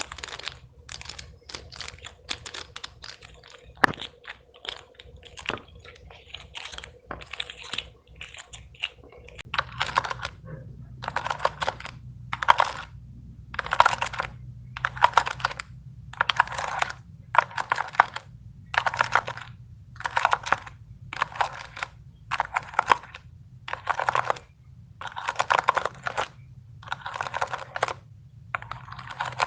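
Plastic fidget toys being clicked by hand: scattered sharp clicks at first, then from about a third of the way in, repeated half-second bursts of rapid clicking about once a second.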